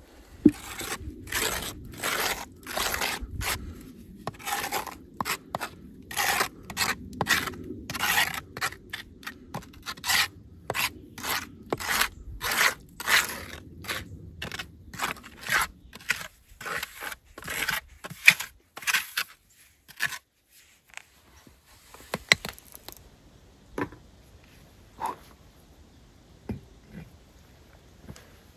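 Gloved hand scraping and rubbing over the bricks of a round brick outdoor stove, in quick repeated strokes about two a second. About halfway through the strokes thin out, leaving a few scattered knocks.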